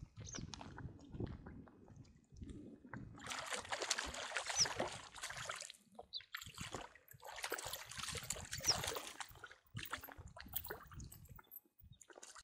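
Water splashing and sloshing in two long bursts as a hooked perch is played at the surface and reeled in to a wading angler, with low wind rumble on the microphone.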